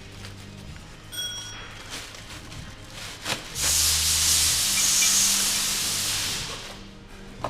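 Aerosol brake cleaner spraying in a steady hiss for about three seconds, starting about halfway in. Earlier a metal part or tool clinks once with a short ringing ding. Quiet background music plays underneath.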